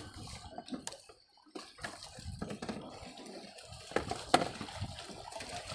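Sea water lapping and sloshing against the hull of a small wooden boat, with two sharp knocks about four seconds in.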